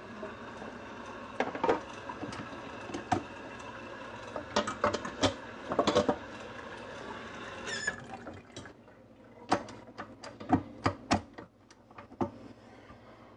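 Stainless-steel mixing bowl and stand-mixer whisk attachment knocking and clinking as the bowl of whipped cream is scraped, moved and fitted to the mixer. The knocks come singly and in quick clusters over a steady hum that drops away about eight seconds in.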